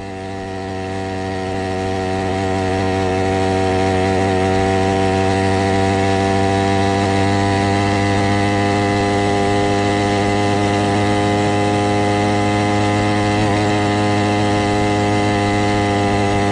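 Stihl MS460 chainsaw engine, a two-stroke, driving a motorized bicycle at steady cruising throttle with its two-stroke brap. It fades in over the first few seconds, then holds an even pitch.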